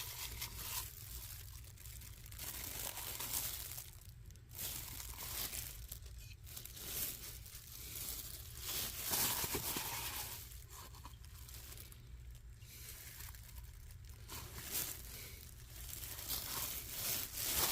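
Crinkling and rustling in irregular spells as the new oil filter kit's parts and packaging are handled.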